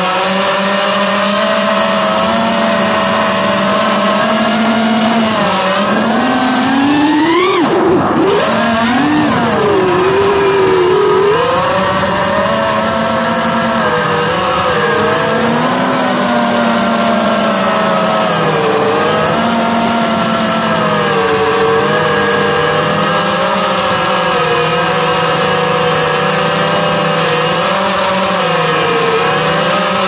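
FPV quadcopter's brushless motors and propellers whining, the pitch rising and falling with the throttle, heard from the onboard camera. About seven seconds in the pitch climbs sharply on a burst of throttle, then drops back.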